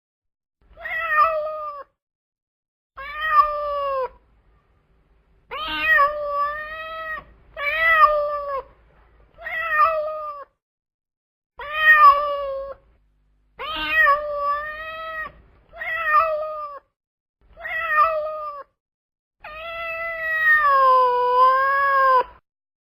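Domestic cat meowing again and again: about ten separate meows, each about a second long with a short pause between, ending in one longer drawn-out meow that wavers in pitch.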